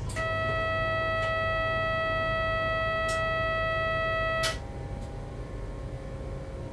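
Steady electronic warning tone in the cab of a Z50000 electric train, sounding for about four seconds and then cutting off sharply, over the low running rumble of the train.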